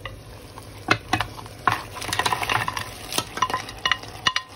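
Crab pieces and meat being stirred into hot oil in a cooking pot: sizzling, loudest about halfway through, with sharp knocks and scrapes of a utensil against the pot.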